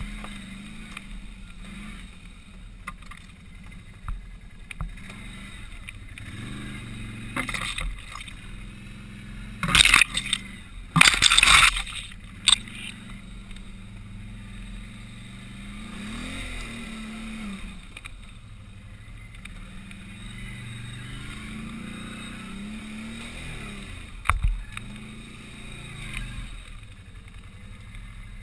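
Can-Am ATV engine running at low speed on a rough trail, revving up and down several times. There are loud rough noises about ten and eleven seconds in, and a sharp knock later on.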